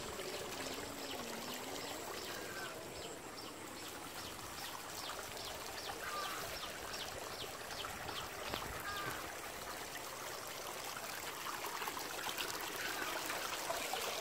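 Shallow water running and trickling steadily along a narrow channel cut through mud. A regular run of faint high ticks sounds over the first two-thirds.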